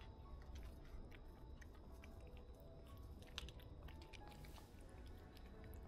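A kitten chewing wet cat food in gravy: quiet, irregular smacking and clicking chews.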